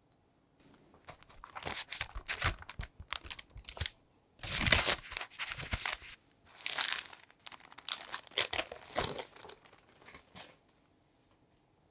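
Baking paper crinkling and rustling in irregular bursts as it is wrapped around a cream-filled roll cake, pressed, and peeled back off.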